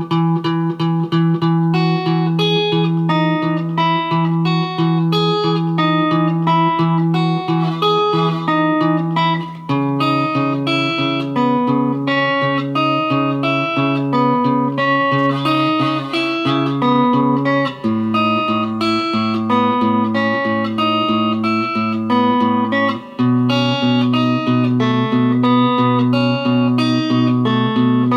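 Solo guitar playing a picked arpeggio pattern: single notes plucked in a steady stream over a low bass note that rings under each chord, changing chord every several seconds. A buzzing sound is mixed in with the notes.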